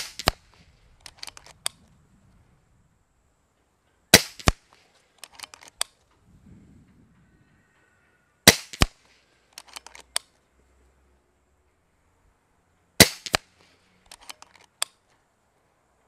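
Kral Puncher Breaker .22 PCP bullpup air rifle fired four times, about four and a half seconds apart. Each shot is a sharp crack followed a fraction of a second later by a second, fainter crack, then by a quick run of small clicks as the action is cycled.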